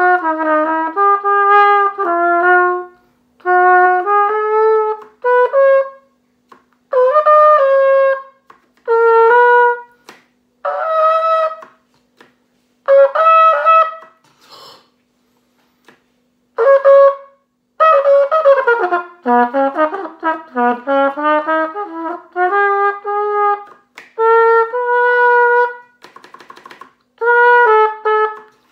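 A pCornet, a plastic cornet with plastic valves, playing a tune in short phrases separated by pauses of a second or two, with a few notes sliding downward about two-thirds of the way through. The player says the plastic valves stick and make it very difficult to play properly.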